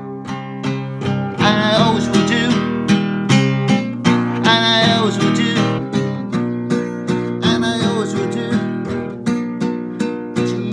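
A man singing a simple worship song to a strummed acoustic guitar, the steady strumming running under a few long sung phrases that bend and waver in pitch.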